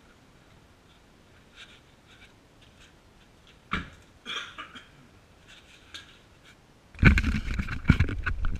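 Mostly quiet, with faint scattered ticks and a sharp click a little before the middle. About seven seconds in comes a sudden loud, irregular rubbing and knocking: the camera on the ground under the car being handled and moved.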